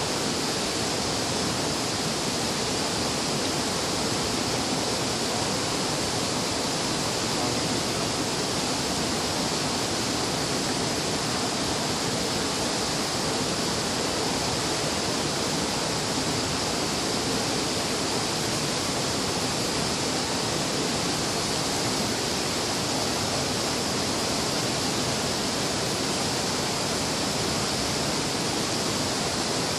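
Steady loud rushing of a fast-flowing river, an even roar of water with no breaks.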